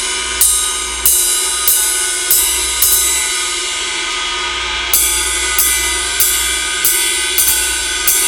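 A ride cymbal played with a wood-tip drumstick: even strokes about every 0.6 seconds, each leaving a bright, sustained ring, with a pause of about two seconds partway through and a few quicker strokes near the end.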